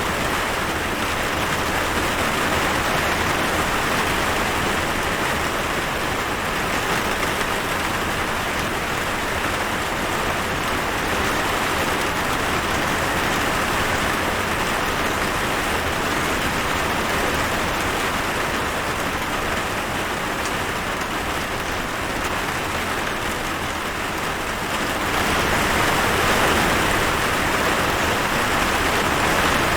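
Rain falling steadily, a continuous hiss of drops on a surface, growing a little louder about 25 seconds in.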